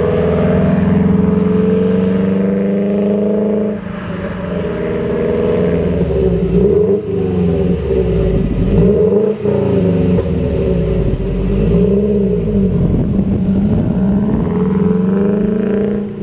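Exhaust note of a Subaru Impreza WRX STI's turbocharged 2.5-litre flat-four through a Corsa performance exhaust. It drones at a steady pitch for the first few seconds, changes abruptly around four seconds in, then the engine is revved up and down several times before settling back to a steady drone near the end.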